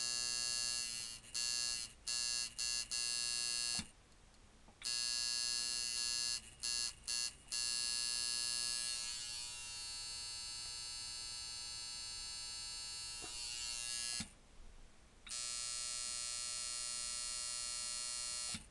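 Rebuilt Micky Sharpz Contraption coil tattoo machine, set up as a medium-speed shader, buzzing steadily at one pitch. It is switched on and off repeatedly: a few short bursts, two brief stops, and two long runs.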